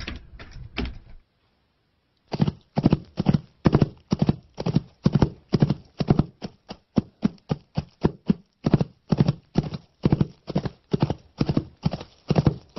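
Foley horse hoofbeats performed by hand in an even clip-clop. A few knocks come first, then a short pause about a second in, then steady strikes at about two to three a second.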